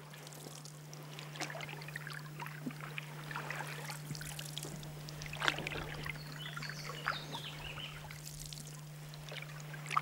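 Paddles dipping and splashing as an inflatable dinghy is paddled slowly through calm water, with scattered drips and small knocks; the loudest knock comes about halfway through.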